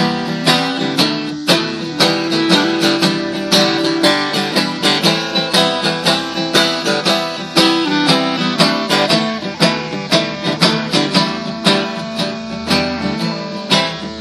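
Instrumental break of live acoustic folk music: a 12-string acoustic guitar strummed steadily, about two strums a second, with a clarinet playing held melody notes over it.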